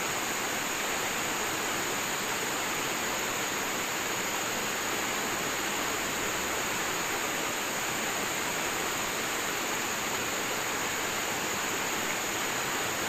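Steady rush of river water running through rapids.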